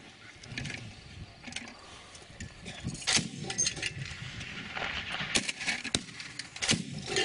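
A few sharp gunshot cracks, the loudest about three seconds in, around five and a half seconds and near the end, each with a short echo.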